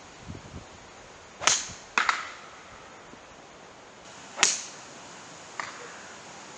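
Golf iron striking the ball: three loud, sharp cracks, the first two half a second apart and the third about two and a half seconds later, the first led in by a short swish of the club. A fainter click follows near the end.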